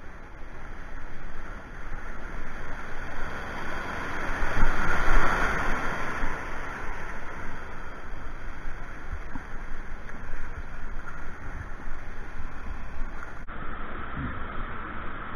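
Rushing water of a river weir, a steady hiss that swells about four to six seconds in. About 13 seconds in the same rush continues with a duller top end.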